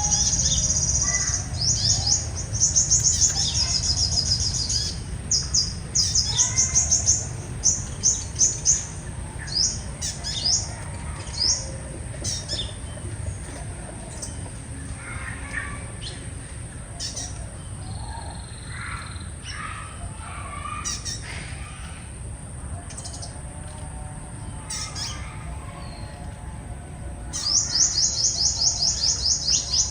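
Sunbirds calling: high, rapid trilled chirps in repeated bursts, thickest in the first several seconds and again near the end, over a steady high insect hum.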